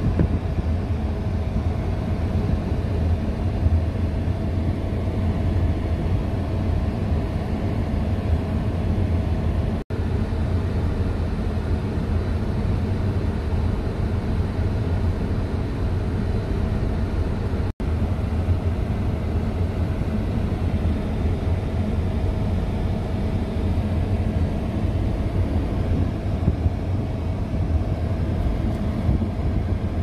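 A car driving slowly, heard from inside the cabin: a steady low rumble of engine and road noise with a faint constant hum. The sound drops out for an instant twice, about a third and about three fifths of the way through.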